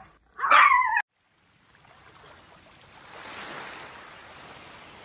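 A brief high-pitched vocal sound about half a second in, then, after a short silence, the hiss of ocean surf fading in and holding steady.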